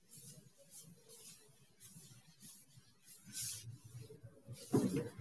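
Chalkboard being wiped clean with a duster: faint, repeated scratchy swishing strokes. A louder knock comes near the end.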